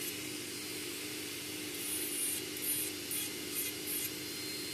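Electric nail drill spinning a worn red-band mini raptor bit, grinding acrygel around the cuticle line in short scratchy passes, several in the second half, over a steady motor hum from the drill and the nail dust collector fan.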